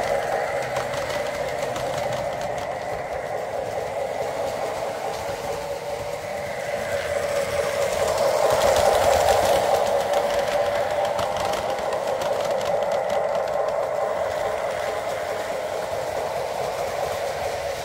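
A Lionel O gauge train rolling on three-rail tubular track while Carrera Go slot cars run on the crossing slot track: a steady whirring and rumble of small electric motors and wheels that swells about halfway through, then eases.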